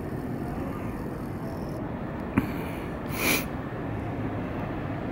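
Steady low rumble of city and building background noise in an enclosed courtyard. A single sharp click comes about halfway through, and a brief hissing swell follows about a second later.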